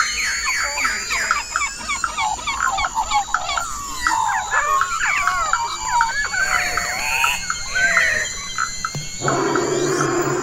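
Many birds chirping and calling at once in a dense chorus of short rising and falling notes, over a steady high-pitched whine. About nine seconds in, a rougher hissing sound with a low hum joins.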